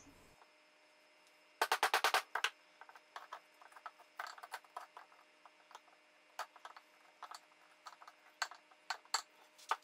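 Hand chisel paring the end of a slot cut in hickory, its edge cutting the wood in sharp clicks: a quick run of about eight about two seconds in, then scattered single clicks.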